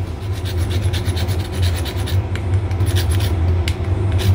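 Whole nutmeg rasped on a small stainless-steel hand grater: a run of short, irregular scraping strokes, with a steady low hum underneath.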